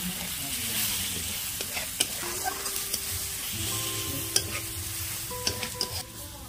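Tomatoes and ground spices sizzling as they fry in a metal kadhai, while a metal spatula stirs and scrapes through the masala. A few sharp knocks of the spatula against the pan stand out.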